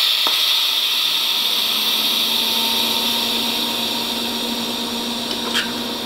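TIG welding arc laying a tack weld on stainless steel with filler rod: a steady high hissing buzz with a low hum underneath.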